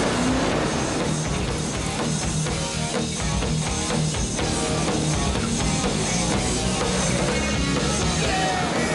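Rock-style soundtrack music with drums and guitar playing steadily.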